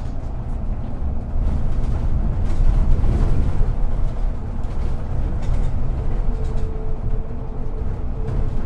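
City bus heard from inside the passenger cabin while driving: a steady low engine and road rumble. A faint steady whine joins in about two-thirds of the way through.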